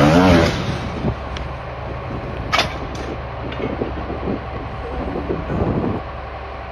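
A steady low mechanical hum, like a vehicle running, with a short wavering voice-like sound right at the start and a sharp click about two and a half seconds in.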